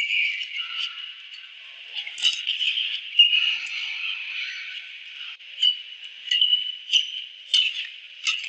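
Badminton rally: rackets strike the shuttlecock with sharp clicks, coming about every two-thirds of a second in the later part. Short, high shoe squeaks on the court floor sound between the hits.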